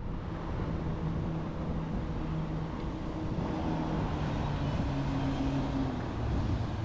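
A boat motor running steadily, its low hum shifting in pitch a few times, over a constant rush of water and air noise.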